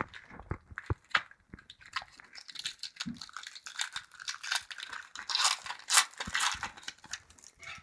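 Hockey card pack wrapper crinkling and being torn open, with sharp clicks and rustles of cards being handled. The crinkling is densest in the second half.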